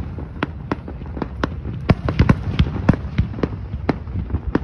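Aerial fireworks shells bursting: a quick, irregular series of sharp bangs, about three a second, over a continuous low rumble.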